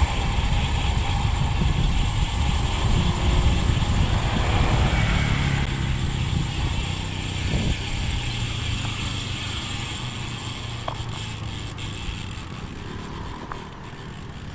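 Wind and tyre rush from a road bike coasting downhill, with a motorcycle engine passing midway. In the second half the Elite ENT 50mm disc hub's freewheel ratchet ticks in a fast, even series as the rider coasts.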